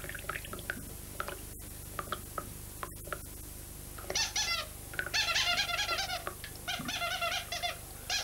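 Quiet at first with a few faint clicks. About four seconds in, quick runs of high, squeaky chirps start up in a bouncing, tune-like rhythm, in short bursts with brief gaps.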